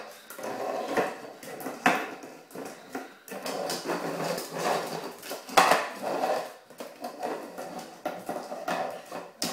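A puppy pawing at and shoving its water bowl across a tiled kitchen floor: irregular scraping and clattering knocks of the bowl against the floor, the loudest about five and a half seconds in.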